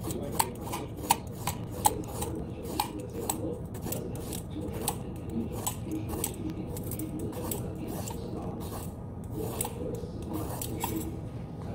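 A kitchen knife working through fresh vegetables by hand: irregular light clicks, about two or three a second, with scraping between them, over a steady low hum.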